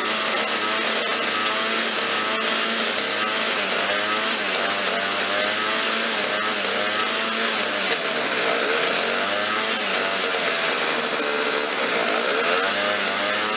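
Craftsman two-stroke snowblower engine running at a high idle, its pitch rising and falling every second or two as the speed hunts. It runs unloaded, and the owner puts the high idle down to the governor kicking in.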